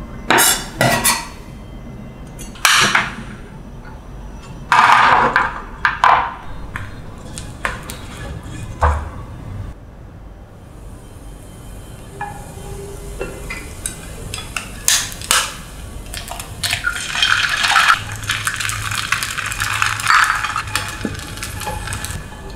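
Utensil knocks and clinks in a ceramic bowl as diced sausage is mixed into vegetables, several separate strikes. Then, after a short lull, bread frying in hot oil in a pan: a steady sizzle that grows louder in the second half.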